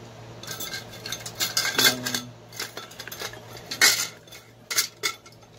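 Kitchen utensils and a large mixing bowl being handled, clattering and clinking in a run of sharp knocks, loudest about two and four seconds in.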